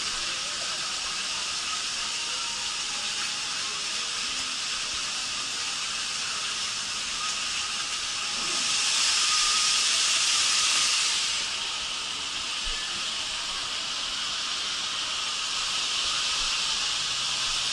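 Steady hiss of rushing water in a launch-capsule water slide. It swells louder for about three seconds near the middle, then settles back.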